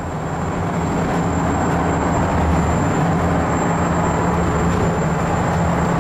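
Steady drone of a sportfishing boat's engines running underway, heard from inside the cabin, with a low hum and a thin high whine over it.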